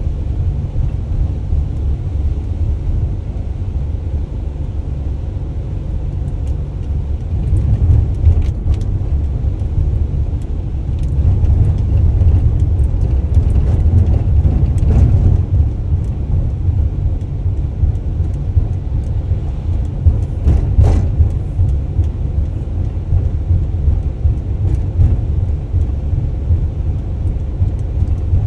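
Delivery van driving: a steady low rumble of engine and road noise, with a few brief knocks and rattles.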